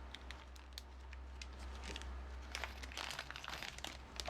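Crinkly plastic packaging being handled, with many small irregular crackles and light clicks.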